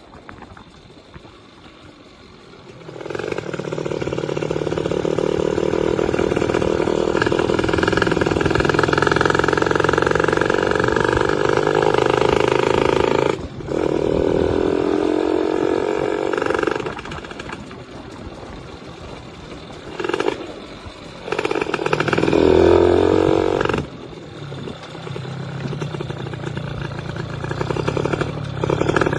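Yamaha F1ZR's two-stroke single-cylinder engine, quiet at first, then pulled hard from about three seconds in for some ten seconds. It eases off twice, then gives a few short, loud revs with a rising pitch near the end.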